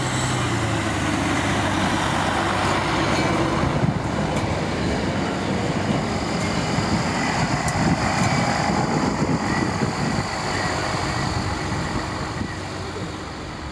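SA108-001 diesel railcar passing close by: its diesel engine runs under the wheel noise on the rails. The sound eases off near the end as the railcar draws away.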